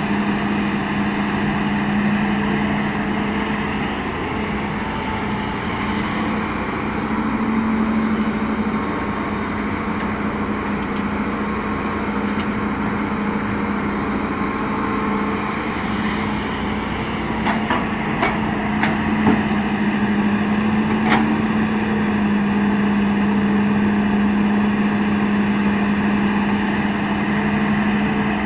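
Hitachi hydraulic excavator's diesel engine running steadily under load, with a few sharp knocks about two-thirds of the way in.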